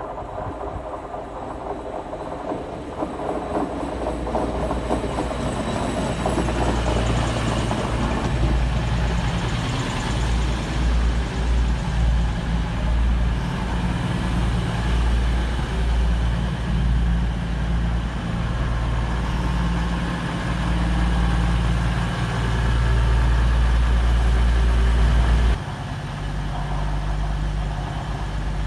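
East Midlands Railway Class 222 Meridian diesel multiple unit running into the platform. Its underfloor diesel engines grow louder as it approaches, then run steadily alongside with a deep drone. About three seconds before the end, the low drone drops suddenly.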